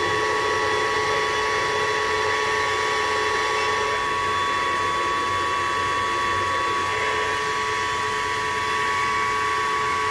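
Hoover Evolve Pet cordless stick vacuum running on its low power setting: a steady motor whine with air rushing through it, holding constant throughout.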